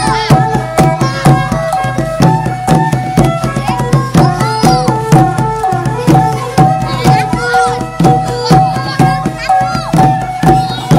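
Cambodian chhayam hand drums (skor chhayam) beaten with palms and fingers in a brisk, steady rhythm, with held pitched notes sounding over the drumming.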